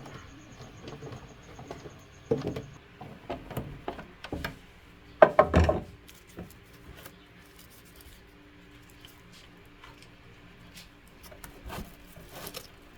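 Irregular knocks, taps and rubbing of hard objects being handled, with the loudest cluster of knocks a little past five seconds in and a few more near the end.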